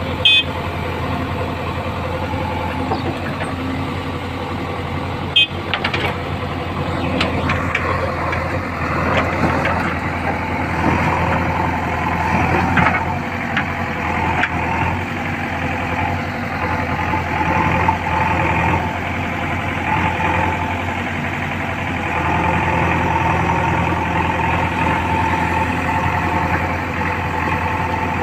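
Diesel engine of a JCB earthmover running steadily, with a sharp knock right at the start and another about five seconds in.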